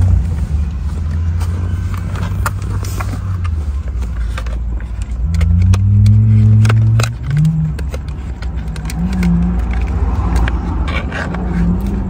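Scattered sharp clicks and taps of a metal screwdriver prying at the plastic trim clips of a steering wheel's rear cover, over a loud low hum that shifts in pitch now and then.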